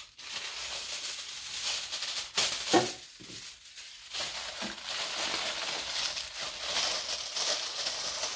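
Sheet of aluminium foil crinkling and rustling as it is spread over a mould and pressed down around its rim, with a few louder crackles about two and a half seconds in. It cuts off suddenly at the end.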